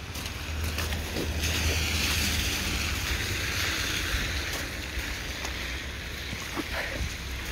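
Wet street noise during a thaw: a hiss swells about a second and a half in and fades after about five seconds, over a steady wind rumble on the microphone, with a few soft wet footsteps in slush.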